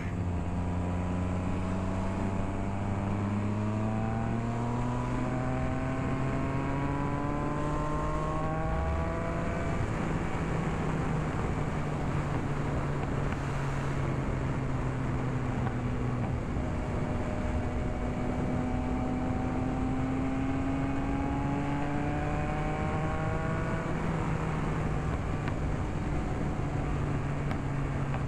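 Motorcycle engine running under way, its pitch climbing slowly and dropping back twice, about halfway through and near the end, under heavy rushing wind and road noise on a helmet-mounted camera.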